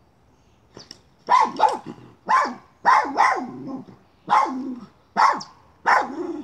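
Miniature schnauzer barking at a chipmunk it is hunting: about eight barks starting about a second in, some coming in quick pairs.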